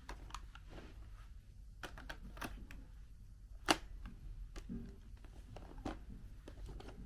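Plastic parts of a Dyson V6 vacuum being handled and fitted together as the battery pack goes back on: scattered light clicks and knocks, with one sharp, louder click a little past the middle.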